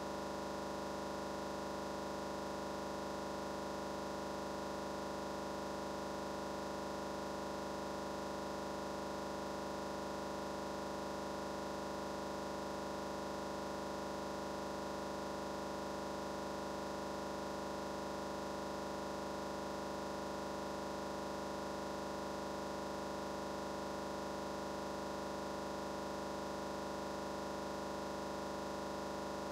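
Steady electronic hum and hiss, a fixed chord of tones over static that does not change at all, in place of the approaching train's sound.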